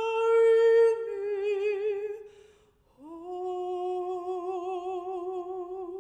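Mezzo-soprano humming alone: one long held note with vibrato, then after a short break about three seconds in, a second, lower held note.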